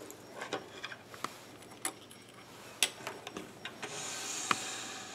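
Light clicks and taps of things being handled on a lab bench, then a steady scraping hiss lasting under two seconds near the end as a benchtop hot plate is slid across the bench top.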